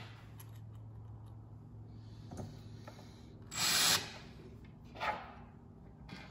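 Cordless drill briefly driving a small screw into a metal bracket on a drawer front, one short run of about half a second roughly three and a half seconds in, with a smaller burst about a second later. The clutch is set low, at 15, so the screw does not strip its hole. Light clicks and rubbing from handling the screws and hardware.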